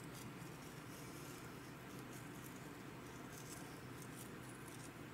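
Kosher salt sprinkled by hand onto raw thinly sliced beef steaks: a faint patter of grains over a steady low hum.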